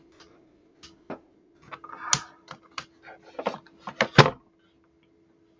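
Typing on a computer keyboard: irregular keystrokes, a few of them louder, around two seconds and four seconds in.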